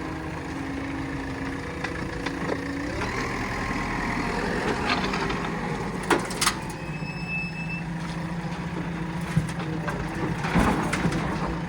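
Diesel engines of a JCB backhoe loader and dump truck running steadily, with a few sharp clanks about six seconds in and again near the end.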